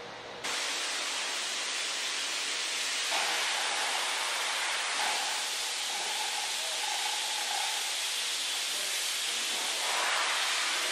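A steady hiss of noise that starts suddenly about half a second in and holds level throughout.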